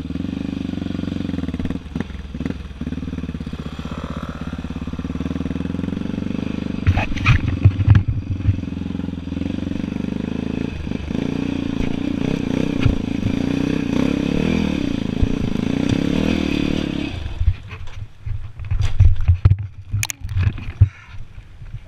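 Dirt bike engine running under throttle on a sandy trail, with a few hard knocks about 7 seconds in. About 17 seconds in, the engine sound drops away as the bike crashes, followed by a run of irregular thumps and clatter as the bike and rider go down.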